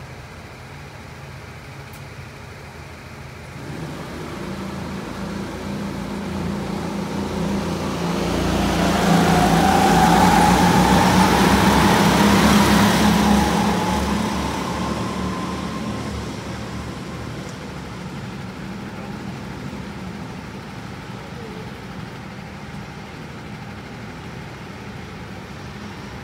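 A pack of go-karts pulling away from a race start and passing: the massed engine noise builds, peaks with a rising engine note about ten seconds in, then fades to a steady distant drone as the field goes round the track.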